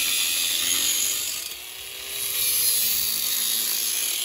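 Angle grinder with a thin cutoff wheel cutting through a metal tube: a steady high hiss of the wheel biting the metal over the motor's whine. It eases off briefly a little before halfway, then bites in again.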